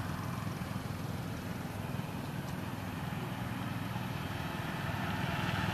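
Road traffic: a motor vehicle's engine running steadily, getting a little louder near the end.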